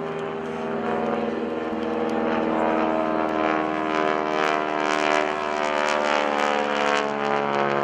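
North American SNJ-5 Texan in aerobatic flight: its nine-cylinder Pratt & Whitney R-1340 Wasp radial engine and propeller drone steadily, growing louder toward the middle with a raspy edge, while the pitch slowly falls.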